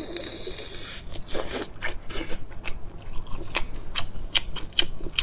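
Close-miked chewing and biting into giant boiled prawn meat, with many sharp wet mouth clicks and smacks. A brief rustling noise comes in the first second.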